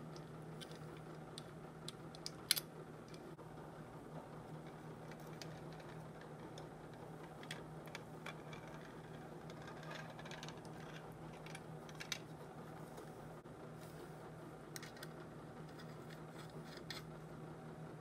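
Scattered small clicks and taps of metal grinder parts being handled and fitted together during reassembly of a vintage Garantie hand-crank coffee grinder, with one sharper click about two and a half seconds in. A steady low hum runs underneath.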